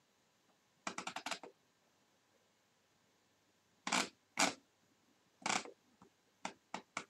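Clusters of short, sharp clicks and taps: a quick run of about six about a second in, then several separate taps in the second half.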